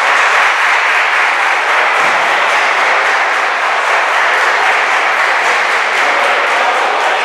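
Crowd of futsal spectators clapping and cheering in a dense, steady wash of noise.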